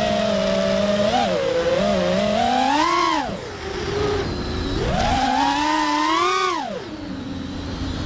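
FPV freestyle quadcopter's brushless motors and propellers whining, heard from on board. The whine climbs in pitch as the throttle is punched and drops away sharply twice, about three seconds in and again about seven seconds in, as the throttle is cut for a flip or dive, then climbs again near the end.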